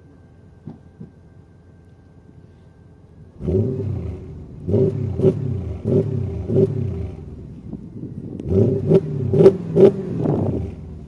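Car engine with a custom exhaust revved in repeated quick blips, each rising and falling in pitch, with a short lull between two groups of revs. Several sharp cracks ring out on the blips, loudest in the second group.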